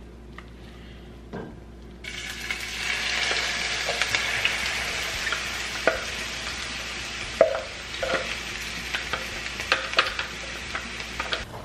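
Chopped onions sizzling in hot oil in a frying pan. The hiss starts abruptly about two seconds in, as they go into the pan. Scattered clicks and knocks come from a spatula scraping them out of a plastic food processor bowl.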